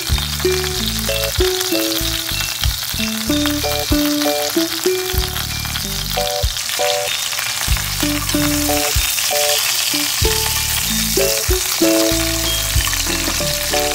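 Pork belly sizzling steadily as it fries in a pot, under background music with a steady beat.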